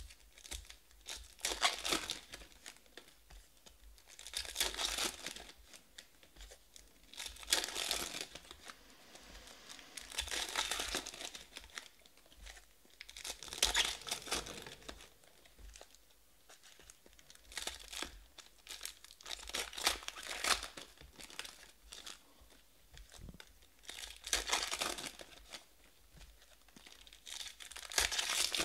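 Foil trading-card pack wrappers being torn open and crinkled by hand, one pack after another, in bursts every few seconds.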